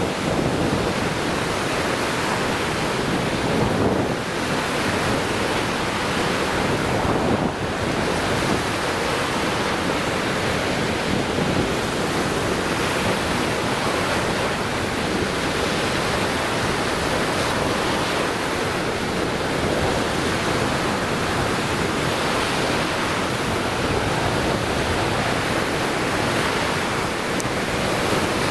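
Lake Michigan waves breaking on the shore: a steady wash of surf, swelling slightly about four and seven seconds in.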